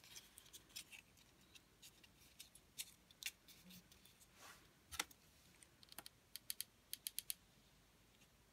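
Faint crackling and ticking of stiff card-paper pieces being folded and handled in the fingers, with a quick run of several small ticks near the end.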